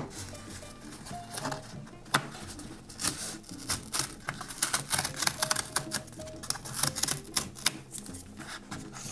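Cardboard tear strip being pulled open along a perforated mailer: a quick run of small crackling clicks and rips as the strip comes away.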